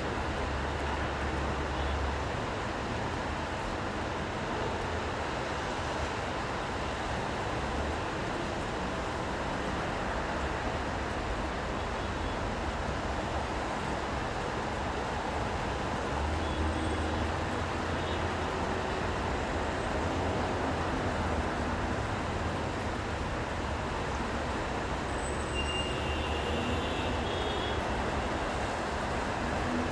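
City street traffic in the rain: a steady hiss of tyres and rain on wet road, with the low rumble of passing vehicles swelling about two seconds in and again past the middle.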